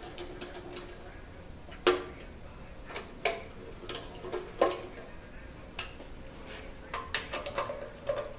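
Hand wrench snugging down the oil pan bolts on a Ford 289 V8. Separate sharp metallic clicks with a brief ring come about once a second, then a quick run of several clicks near the end.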